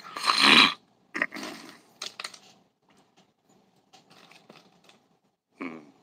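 A loud burst of breath noise right at the start, then a weaker one, followed by scattered light clicks and rustles from hands handling fishing line and leader hardware. A short voiced hum comes near the end.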